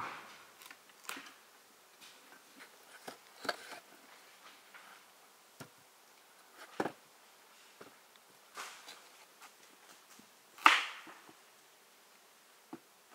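Kitchen knife cutting through a pumpkin on a wooden cutting board: scattered short knocks and cracks of the blade through the rind and on the board, with one louder crack near the end.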